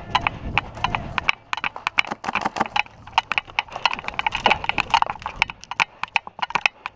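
Airsoft guns firing in an irregular rapid crackle of sharp shots and snaps, several guns at once.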